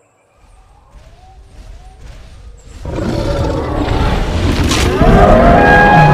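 Dinosaur roar sound effect: quiet at first, then about three seconds in a loud, deep, rumbling growl-roar swells up, with pitched bellowing over it toward the end.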